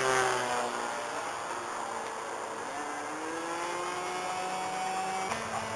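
Small propeller engine droning, several pitches in it gliding slowly up and down, with a shift about five seconds in.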